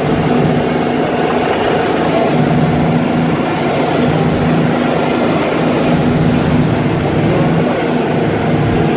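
Passenger ferry's engines droning steadily while under way, a low hum with a continuous rush of noise over it.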